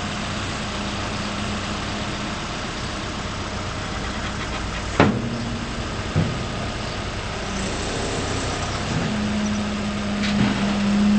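Case 580N backhoe loader's diesel engine idling steadily, with two sharp clunks about five and six seconds in. Near the end a louder, steadier hum comes in over the idle.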